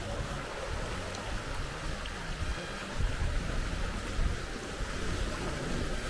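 Small waves washing and splashing over volcanic rocks at the water's edge, a steady hiss that swells and falls, with wind buffeting the microphone in uneven low gusts.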